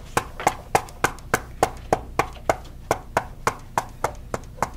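A steady run of sharp knocks or clicks at an even pace, about three and a half a second.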